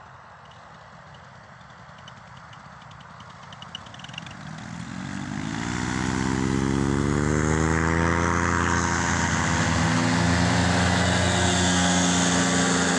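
Paramotor trike's engine and propeller approaching, faint at first, then growing much louder from about four seconds in, its pitch rising as the powered paraglider comes in close overhead.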